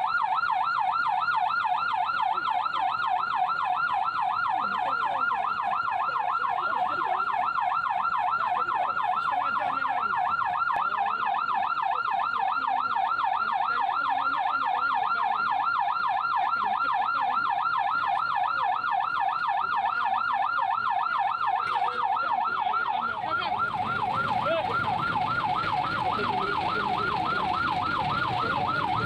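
Emergency vehicle siren sounding a fast yelp, its pitch rising and falling several times a second without a break. Traffic rumble joins it near the end.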